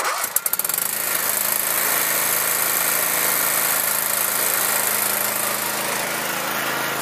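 John Deere LT160 lawn tractor engine starting: a few uneven beats in the first half-second as it catches, then running steadily as the tractor drives off.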